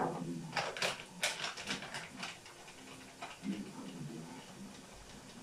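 Crinkling and crackling of a plastic spice packet being handled and opened, a scatter of sharp crackles over the first two seconds or so, quieter after.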